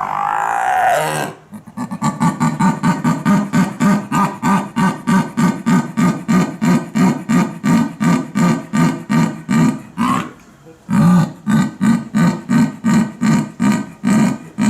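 A big cat's sawing call: a long run of rhythmic, rasping grunts, about three a second, pausing briefly about ten seconds in and then carrying on.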